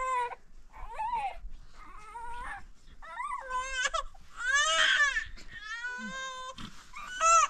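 A baby crying: a string of short cries, each rising and falling in pitch, getting louder from about halfway through.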